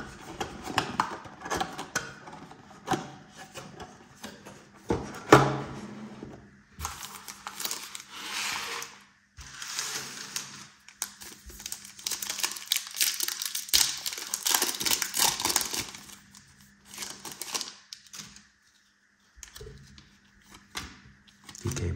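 Foil trading-card pack wrappers crinkling and tearing open, in long rustling bursts, with clicks and knocks of handling before them and one sharper knock about five seconds in.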